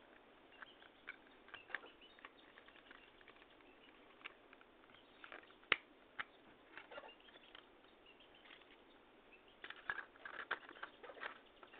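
Faint scattered clicks and taps of small parts being handled during a flashlight rewiring job, with one sharp click a little before the middle and a busier run of small clicks near the end.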